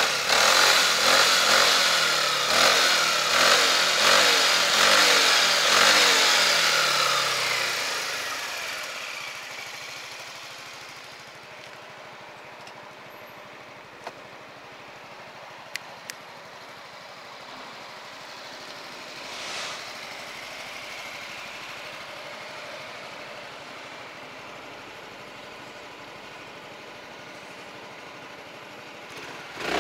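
Honda Forza 350 single-cylinder scooter engine through its stock exhaust, revved repeatedly with the pitch rising and falling for several seconds, then dying down to a quiet, steady idle for the rest. A few small clicks come partway through.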